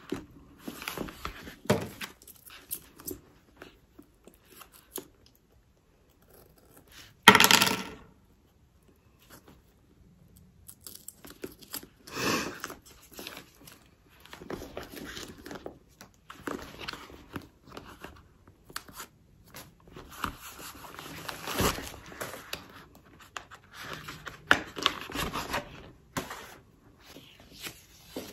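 Rustling and tearing of protective paper and plastic wrapping being pulled off a new handbag's hardware and trim, in a series of short irregular bursts, with a loud sharp noise about seven seconds in.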